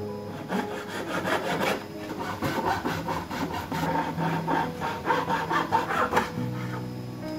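A small hand tool scraping back and forth through wood in quick, steady strokes as the CNC-cut piece is worked in its slot in the board. The strokes stop about six seconds in, leaving faint background music.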